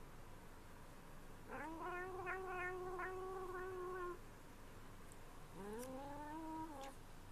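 Calico cat making two long, wavering meow-like calls while eating a lickable treat from a squeeze tube: the first lasts about two and a half seconds, the second is shorter and rises in pitch at its start.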